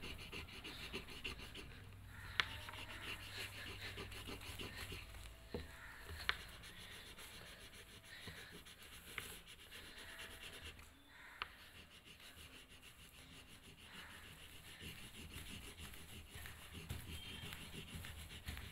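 Wax crayon rubbing on paper in quick back-and-forth colouring strokes, faint, with a few sharp ticks.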